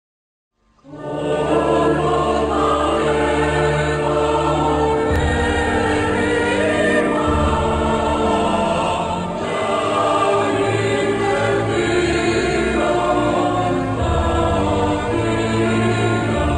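Choral music: a choir singing sustained notes over low held bass tones, starting about a second in.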